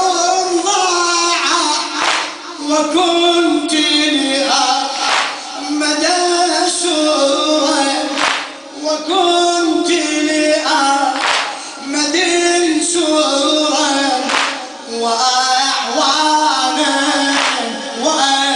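A male eulogy reciter chanting a Shia latmiya lament through a microphone in a large hall, and the congregation beating their chests in unison, a sharp beat about every second and a half.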